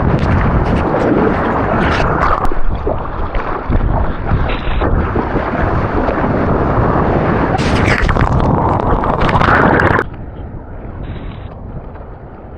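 Rushing, churning ocean water and wind buffeting an action camera's microphone while surfing a wave, with loud crackling surges. About ten seconds in it cuts suddenly to a quieter, duller wash of water.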